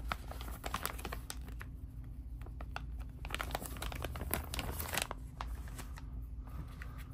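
Clear plastic zip-top bag of cotton gun-cleaning patches crinkling as it is handled and a patch is pulled out, a run of small sharp crackles that come thickest near the start and again about three and five seconds in.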